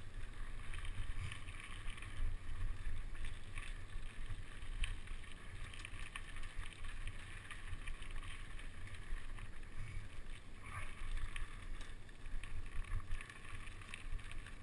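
Mountain bike rolling along a dirt trail, with steady wind rumble on the camera's microphone over the rough crunch and rattle of tyres and bike on the ground, and occasional sharp clicks.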